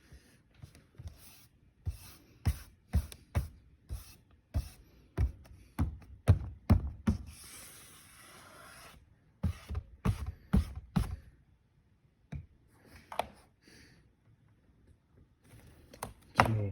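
A run of irregular taps, clicks and knocks, as of objects being handled, with a brief rubbing or scraping sound about eight seconds in.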